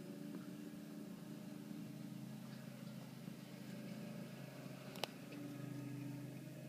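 John Deere X500 garden tractor's engine running steadily as it pushes snow with its front blade, its pitch shifting slightly with load. A single sharp click comes about five seconds in.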